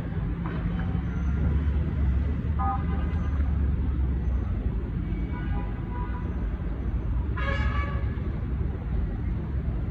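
Road traffic with a steady low engine-and-tyre rumble and three short car-horn honks, about two and a half, five and a half and seven and a half seconds in; the last honk is the loudest.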